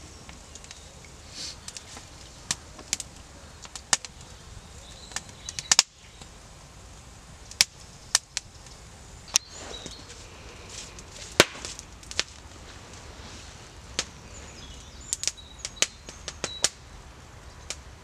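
Wood campfire crackling, with irregular sharp pops and snaps of burning sticks, a few of them loud.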